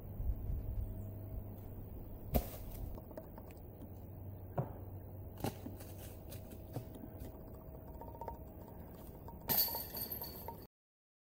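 A few sharp knocks over a low steady outdoor rumble, then near the end a short burst of metallic jingling: a golf disc striking the hanging chains of a disc golf basket. The sound cuts off suddenly just before the end.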